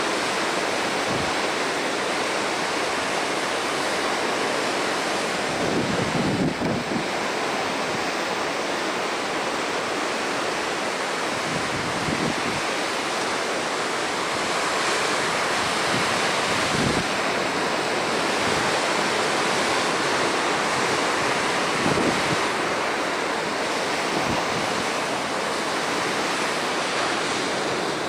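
Ocean surf washing steadily on the shore, with wind buffeting the microphone in several short low gusts.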